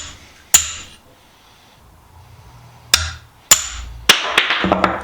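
Hammer blows on a steel pin punch, driving the pins out of a screwdriver's wooden handle held in a bench vise. There are four sharp strikes with a brief metallic ring, one alone and three close together after a pause, then a short clatter near the end.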